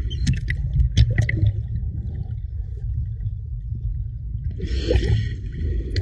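Lagoon water sloshing and gurgling over a half-submerged camera's microphone, heard as a muffled underwater rumble. A few sharp ticks come in the first second and a half, and there is a short splashing hiss about five seconds in.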